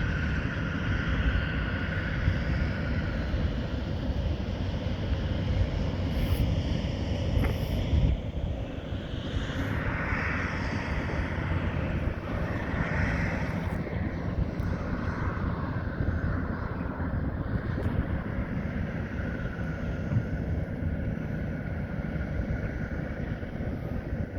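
Heavy diesel equipment at work, a John Deere articulated dump truck's diesel engine running with a steady low rumble.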